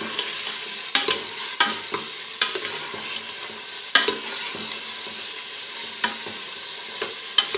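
Beef pieces sizzling as they fry with tomato paste in a metal pressure-cooker pot, stirred with a metal spoon that scrapes and knocks against the pot about once a second.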